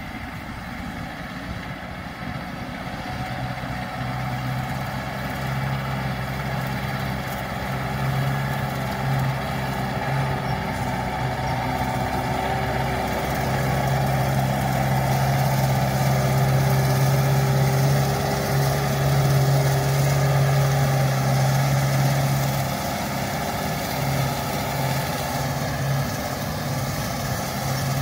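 Farm tractor engine running steadily as it pulls a rotary hay tedder through cut grass. It grows louder as the tractor draws near, is loudest in the second half, then eases off slightly.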